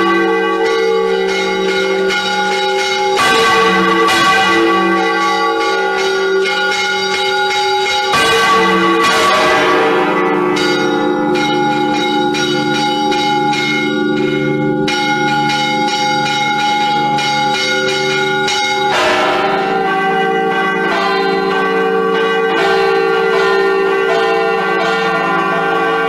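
Several church bells of Valencia Cathedral's Micalet tower being rung by hand together: many overlapping ringing tones that hang on, with fresh strikes about three, eight and nineteen seconds in.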